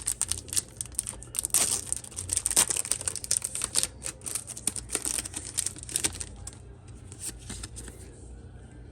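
Foil wrapper of a Yu-Gi-Oh! booster pack crinkling and tearing as it is handled and opened: a dense run of sharp crackles and snaps that thins to faint ticks after about six seconds.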